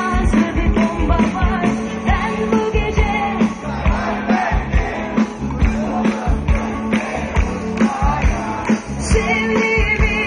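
Live rock band playing on a loudspeaker system: singing over a steady drum beat and electric guitar.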